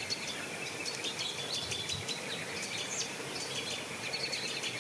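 Many small birds chirping and twittering at once, a dense run of short, overlapping calls over a steady background hiss.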